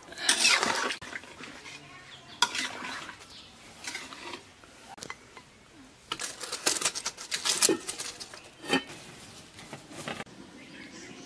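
Metal spatula scraping and knocking against a large aluminium kadai while stirring a thick fish curry, in irregular clusters of clatter. Near the end there is a metallic clank as the aluminium lid goes onto the pot.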